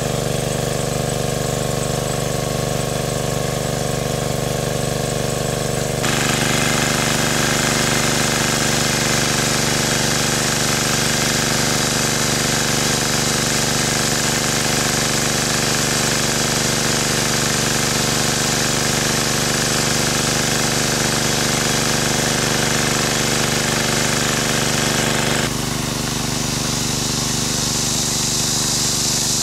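Small petrol engine of a portable water pump running steadily while pumping water. The sound changes abruptly about six seconds in, with more hiss, and again near the end.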